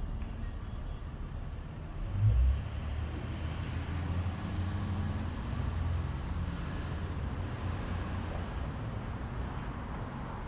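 Downtown street traffic: a steady rumble of passing cars and other vehicles. About two seconds in there is a short, loud low thump, followed by a vehicle engine's low drone that lasts a few seconds and then fades back into the traffic.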